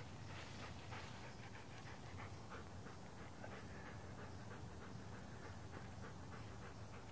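A dog panting faintly in quick, short breaths, densest in the first second.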